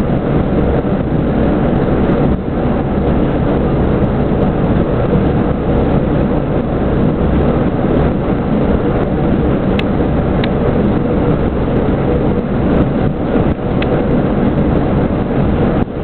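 ČD class 810 railbus ('Brotbüchse') running at speed, heard from inside the car at the window: the steady drone of its diesel engine mixed with wheel and rail noise. A few short, high clicks or squeaks come through near the middle.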